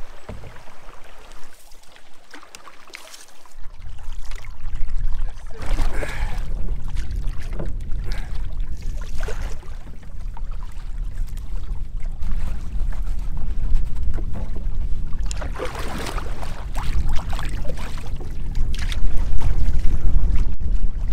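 Canoe on choppy, wind-blown water: wind rumbling on the microphone and waves splashing against the hull. A quieter stretch of paddling on calm water comes first, and the wind rumble sets in about four seconds in.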